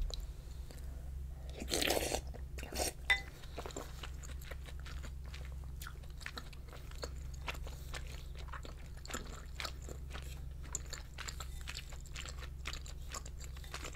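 Close-miked chewing of dumpling rice cake soup: many small, wet mouth clicks and bites, with a louder burst about two seconds in.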